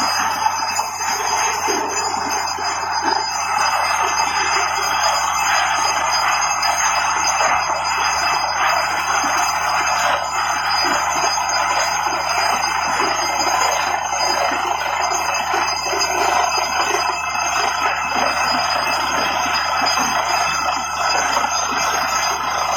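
Borewell drilling rig running steadily: a loud continuous grinding noise with a constant high metallic ringing over a low machine hum.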